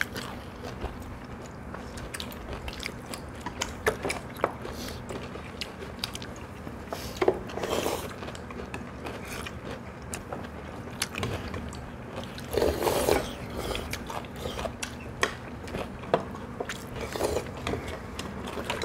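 People eating at the table: chewing, with scattered light clicks of chopsticks and spoons against dishes and a couple of brief louder sounds about seven and thirteen seconds in.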